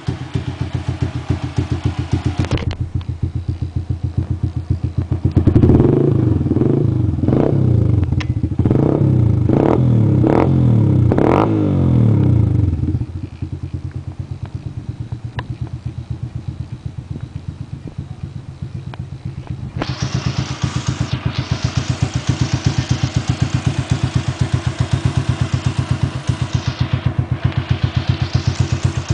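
Sundown Max SED motorcycle's single-cylinder four-stroke engine breathing through an aftermarket Roncar aluminium exhaust. It idles with a steady pulse, is revved in a run of about six quick blips that each rise and fall, then settles back to idle. In the last third a steady hiss comes in over the idle.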